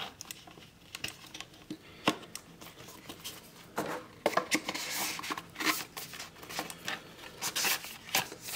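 Handling of a cardboard pen gift box: scattered light taps and clicks, then from about four seconds in a stretch of rubbing and scraping as the tray is slid into its cardboard sleeve.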